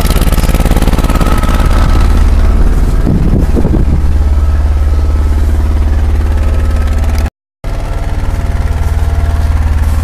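Garden tractor's small engine running steadily at idle close by, a deep even drone. The sound cuts out completely for a moment about seven seconds in.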